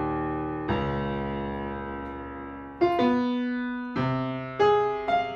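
Grand piano playing slow chords, each struck and left to ring and fade; one chord is held for about two seconds, then several more come in quicker succession near the end.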